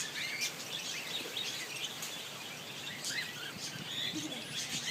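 Many small birds chirping at once, short overlapping chirps and tweets.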